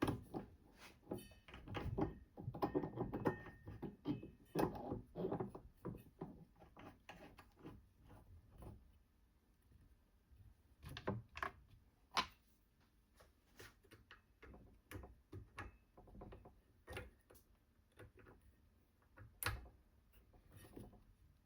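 Scattered clicks, taps and knocks of tools and parts being handled and fitted together, busier in the first half, then sparser with a few sharper clicks.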